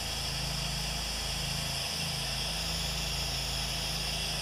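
Pressure washer engine running steadily, with the hiss of the spray wand as it downstreams house-wash solution onto the siding through a fan tip.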